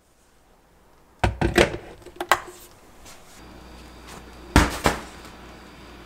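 A run of knocks and thuds, then two loud thumps close together near the end, over a low steady hum.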